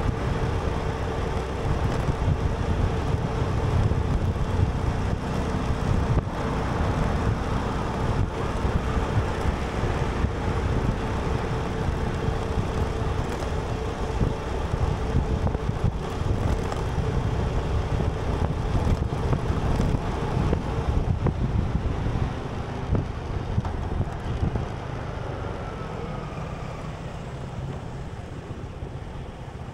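Road traffic and vehicle noise with a low rumble of wind on the microphone, growing somewhat quieter over the last several seconds.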